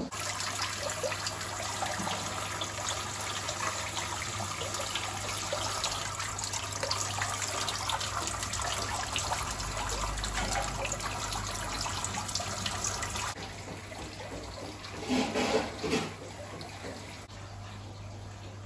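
Water streaming and splashing steadily into a holding tank of live eels, over a steady low hum; the water sound stops abruptly about 13 seconds in, followed by a short louder sound a couple of seconds later.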